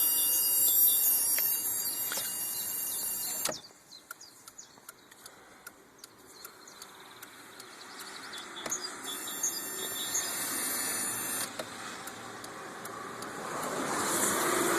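High-pitched whine of several stacked tones from an Opel Corsa B, a fault noise the owner ties to the indicator switch not being in use, its source unknown. It cuts off suddenly about three and a half seconds in, comes back for a couple of seconds midway, and rises again near the end.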